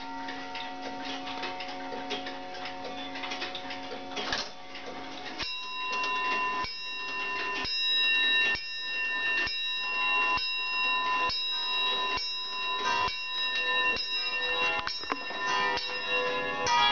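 Several mechanical clocks striking noon. Ticking and the ringing of earlier chimes die away over the first few seconds, then a clock strikes the hour on a bell, one ringing stroke about every second.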